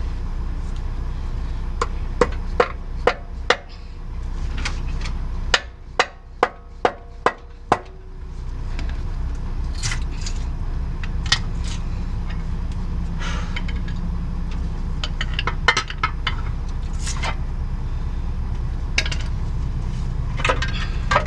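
Sharp metallic knocks and clinks of hand tools working on the engine: a few scattered strikes, then a run of six even taps about two a second, with more scattered clinks later, over a steady low rumble.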